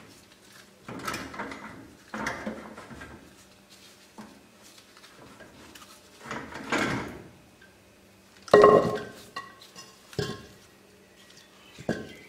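Heavy cast-iron brake drum and hub being worked off the spindle of a 14-bolt rear axle: a series of scraping knocks and metal clanks, with the loudest, ringing clank about eight and a half seconds in.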